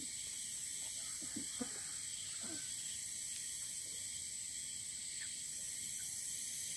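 Steady insect chorus: an even high hiss with a lower band of chirring underneath, with a few faint brief sounds in the first three seconds.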